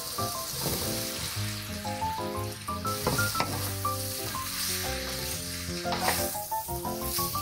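Onions, potato chunks and carrot slices sizzling in a hot nonstick frying pan while a wooden spoon stirs them. Background music with a melody plays along.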